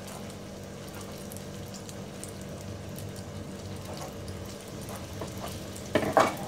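Battered green chillies deep-frying in hot oil in a kadai on a low flame: a steady, gentle sizzle. Near the end a louder burst of crackling and spitting as another batter-coated chilli goes into the oil.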